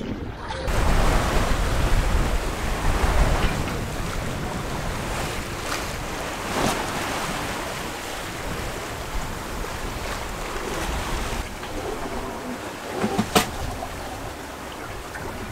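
Wind and water rushing past the hull of a sailing yacht under way, with wind buffeting the microphone in the first few seconds. A few short sharp knocks come through, the loudest near the end.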